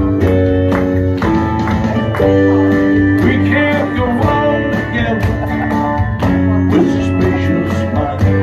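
Music with plucked guitar, in a country style.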